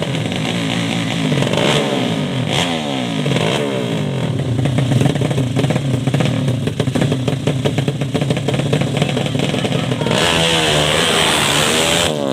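Drag-bike motorcycle engines revving hard, pitch sweeping up and down again and again. A louder, harsher burst of revving comes near the end.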